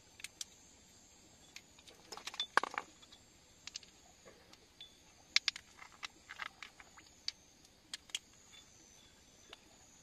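Scattered sharp clinks and taps of steel hand tools (chisel, hammer, metal flashlight) knocking against wet rock and each other as a crystal is worked out of a rock crevice, thickest about two to three seconds in and again around five to six seconds. A faint, steady, high insect buzz runs underneath.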